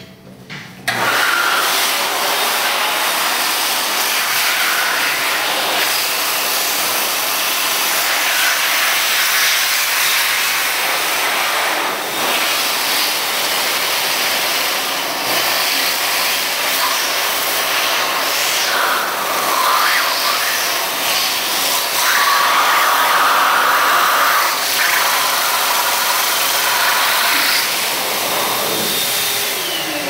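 XLERATOR high-speed electric hand dryer starting up about a second in and blowing air hard, a loud steady rushing noise whose tone shifts now and then as a face is held in the jet; it cuts off near the end.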